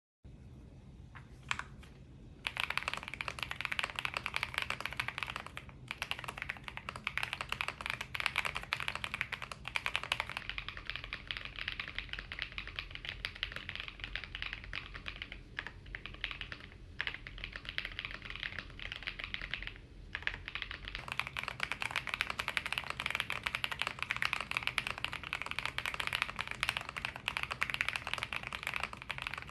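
RK M87 mechanical keyboard with stock switches and a Tempest mod being typed on fast, in a dense run of keystroke clacks after a couple of single key presses. The middle stretch, from about ten to twenty-one seconds in, sounds duller with a low hum, recorded on a cheaper $20 microphone instead of a phone mic.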